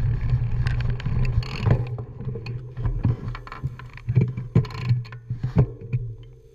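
Mountain bike rolling over a rough forest trail, heard from a handlebar camera: a steady low rumble with rattles and sharp knocks as the bike jolts over bumps. The sound fades away near the end as the bike slows to a stop.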